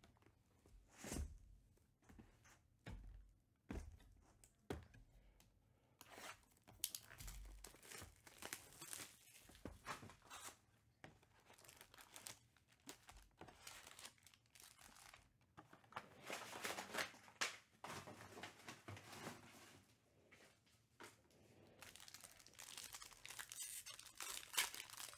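Handling and opening a trading-card hobby box: a few soft knocks of the cardboard box in the first seconds, then tearing of its wrapping and crinkling of the foil card packs, growing louder near the end as a foil pack is handled and torn open.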